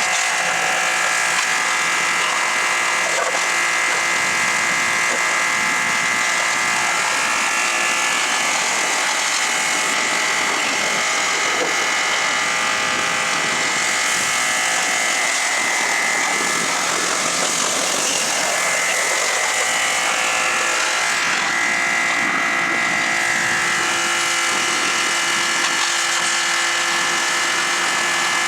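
A small motor running steadily with a buzzing whine of several fixed tones over a hiss.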